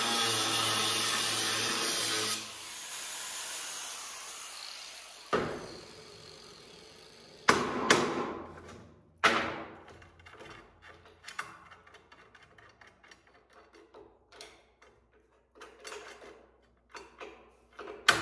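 Angle grinder running against steel tubing, shutting off about two seconds in and winding down. Then a run of metal clanks and smaller taps as steel pieces and tools are handled on a steel table, with a loud clank near the end.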